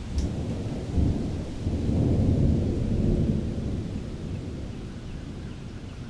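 Rolling thunder: a deep rumble that swells about a second in, is loudest around two to three seconds, then fades away.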